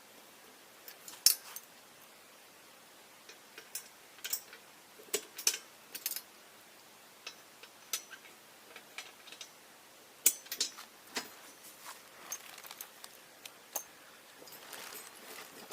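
Metal frame parts and clevis pins of a pontoon float boat clinking and knocking together as the frame is assembled by hand. Scattered sharp clicks and taps, with louder knocks about a second in and again about ten seconds in.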